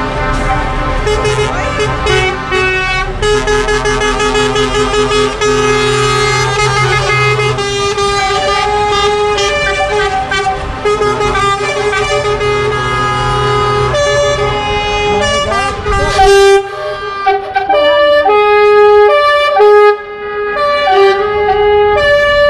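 Convoy trucks sounding their air horns as they pass: several held horn tones overlap over the rumble of truck engines. About two-thirds of the way through, the rumble falls away and a string of separate horn blasts follows, each about a second long.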